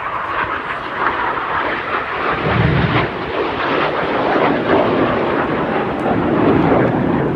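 Jet noise from BAE Hawk T1 jets flying past: a dense rushing sound that grows louder over several seconds.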